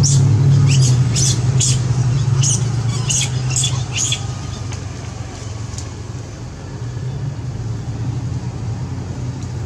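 Steady low hum of a running engine, loudest in the first few seconds, with about ten short high chirps over the first four seconds.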